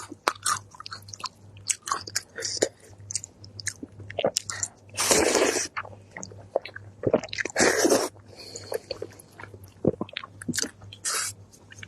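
Close-miked eating: rapid crunchy bites and chewing, with two longer, louder noisy stretches about five and seven and a half seconds in.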